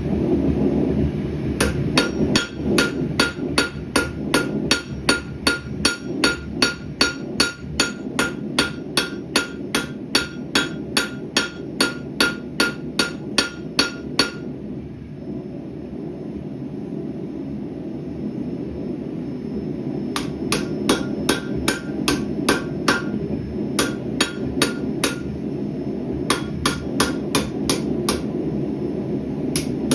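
Hammer forging hot rebar on an anvil, about two to three blows a second, each with a short metallic ring. The hammering stops about halfway through and picks up again for a few seconds later on. A gas forge's steady rushing noise runs underneath.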